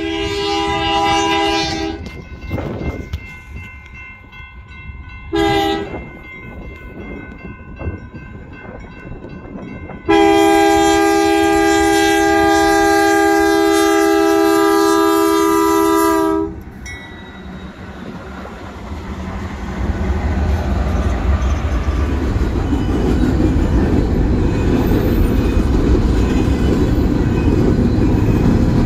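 Train air horn sounding a chord of several notes: a blast of about two seconds, a short toot, then a long blast of about six seconds. After that the train rumbles past, its wheels clacking on the rails, growing louder toward the end.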